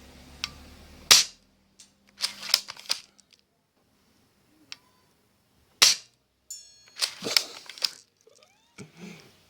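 Spring airsoft pump-action shotgun being fired and worked: sharp snaps about a second in and near six seconds, each followed by a cluster of rattling clacks.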